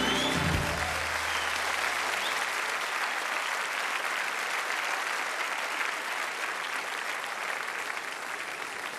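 Large theatre audience applauding. The band's last note ends with a hit about half a second in, and a low note fades out over the first few seconds; the applause then slowly dies down.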